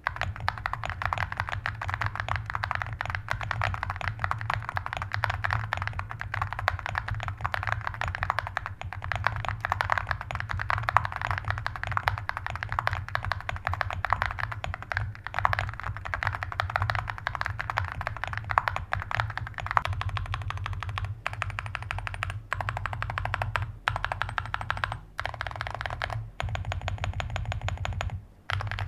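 Fast, continuous typing on a QK75 mechanical keyboard fitted with full metal keycaps, the keys clacking in quick streams, with a few short pauses in the last third.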